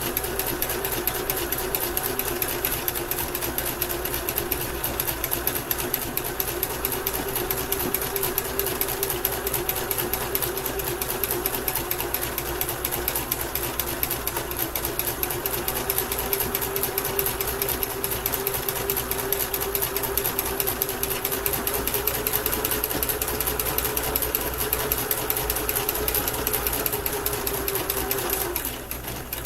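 Basic entry-level Kenmore sewing machine stitching steadily on a zigzag stitch: fast, even needle clatter over a steady motor hum. It stops near the end.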